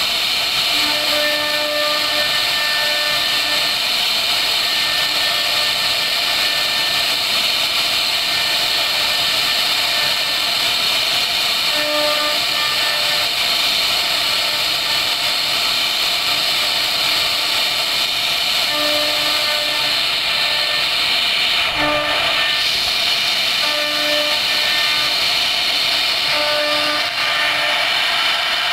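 CNC router spindle running at high speed while its bit carves a relief pattern into a wooden board, giving a steady high-pitched whine and hiss of cutting. A lower tone comes and goes in short stretches several times.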